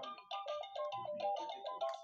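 Electronic baby toy playing a quick melody of short, evenly paced beeping notes.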